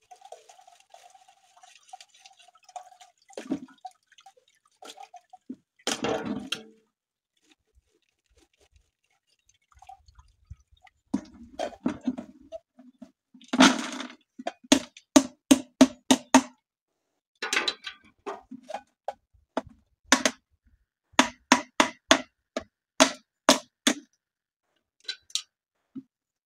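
Strained juniper liquid trickling and dripping at first, then a long run of short knocks and clinks from containers and utensils being handled, several a second.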